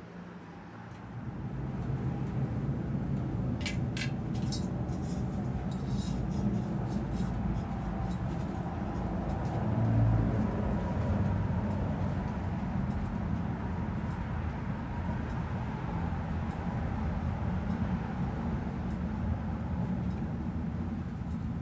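A 52-inch NuTone Elegance ceiling fan with a Top Union K55-style motor running fast: a steady whir and rush of moving air that builds up over the first two seconds. A few light clicks come about four to seven seconds in, and a low thump about ten seconds in.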